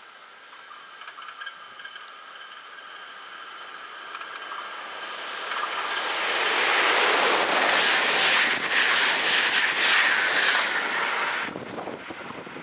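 ÖBB Taurus electric locomotive and its passenger coaches approaching and passing close by at speed: rail and wheel noise with steady high whining tones builds over about six seconds, is loudest as the train goes by, then drops off abruptly near the end.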